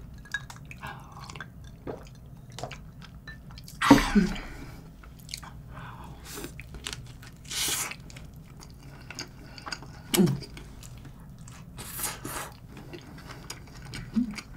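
A person chewing and biting into a burger close to the microphone: soft, wet chewing with small mouth clicks. A few louder short mouth and breath sounds stand out, about four seconds in and again near ten and twelve seconds.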